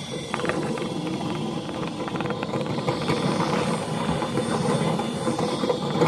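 Dryer vent being cleared of a lint clog: a steady rushing noise with rapid rattling as the spinning flexible cleaning rod slaps about in the rooftop vent and lint blows out.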